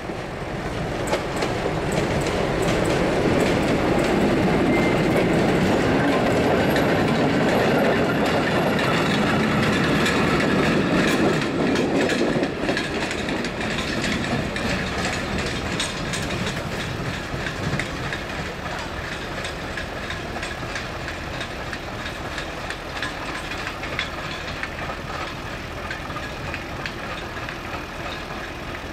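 PKP SM42 diesel-electric shunting locomotive pulling three flat wagons past at close range: the diesel engine running and the wheels clattering over the rails. It is loudest from a few seconds in to about twelve seconds, then fades as the train moves away.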